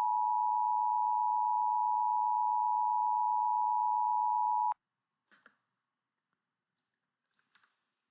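EAS attention tone, the steady two-tone signal (853 and 960 Hz), playing and cutting off abruptly about halfway through. A few faint clicks follow.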